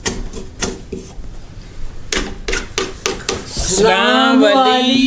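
Irregular light scraping and clicking rubs, then, about three and a half seconds in, a loud, long human vocal cry whose pitch wavers.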